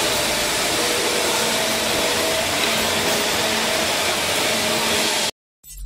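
Steady whirring machinery noise of a QTJ4-30C cement hollow block making machine running, with a faint hum under it. It cuts off abruptly about five seconds in, and after a brief silence music begins.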